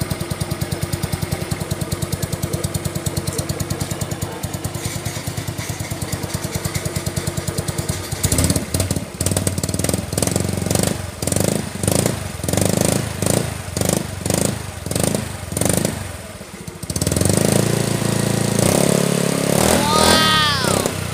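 Yamaha Mio Sporty scooter's single-cylinder four-stroke engine running through an aftermarket Chicken Pipe V3 (Organ Sport V3) exhaust. It idles with a rapid, even pulse, then is revved in a string of short blips about once a second, and is held at higher revs near the end. A brief rising-and-falling tone sounds just before the end.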